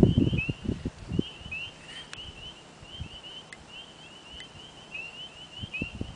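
Frogs calling at a pond at night: a steady chorus of short high chirps, each dipping slightly in pitch, several a second. Low muffled rumbles sound in about the first second.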